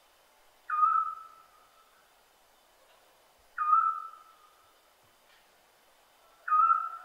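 Scops owl calling: a single short, clear whistled note at a steady pitch, repeated three times about three seconds apart.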